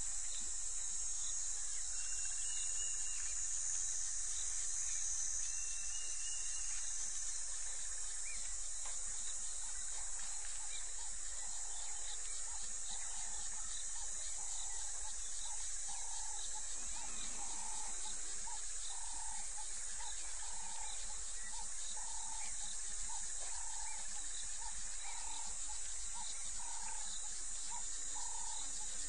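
Steady high-pitched chorus of night insects. From about midway a short call repeats about once a second.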